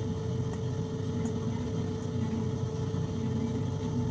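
Steady machine hum, with a constant mid-pitched tone over a low rumble and a few faint clicks.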